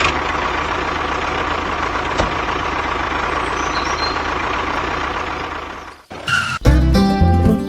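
Truck engine running steadily for about six seconds, then cutting off, with music starting right after.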